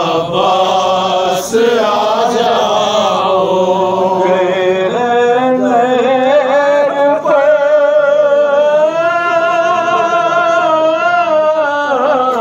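A noha, a Shia Muharram lament, sung in long, held, wavering melodic lines. Several voices overlap at first; from about five seconds in one voice carries the line.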